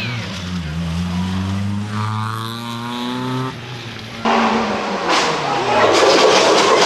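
Race car engine accelerating, its pitch rising steadily for about three and a half seconds before cutting off. A little after four seconds in, a sudden louder rush of noise with clattering and people's voices takes over.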